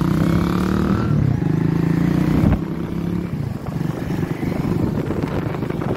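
Motorcycle engine running with a steady hum. A single knock comes about two and a half seconds in, after which the engine tone gives way to rougher road and wind noise.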